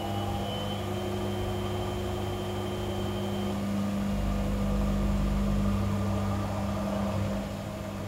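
Gorenje WA65205 front-loading washing machine spinning a king-size duvet: a steady hum of motor and drum with several held tones, swelling slightly and picking up a deeper rumble for a few seconds in the middle.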